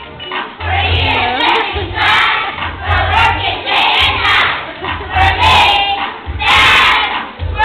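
A group of young children on stage chanting loudly in unison, in short shouted phrases.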